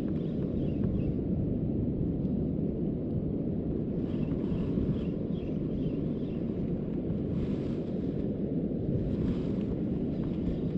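Wind buffeting the microphone outdoors, a steady low rumble throughout. Faint high short notes in a quick series come through about four to six seconds in.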